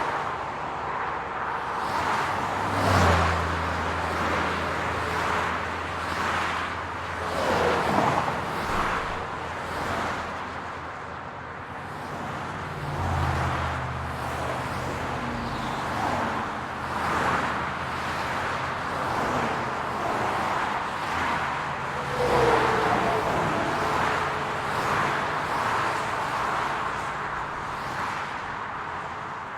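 City street traffic: a steady hum of cars, with several passing close by and a low engine hum running underneath.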